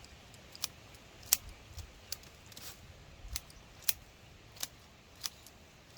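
A blade snipping through plant stems: about nine short, sharp snips at an uneven pace, the loudest about a second in.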